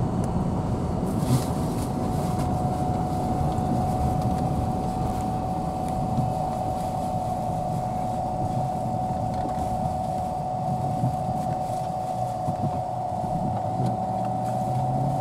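Steady road noise from inside a moving car's cabin on a wet road: a low rumble with tyre hiss and a thin, steady high whine.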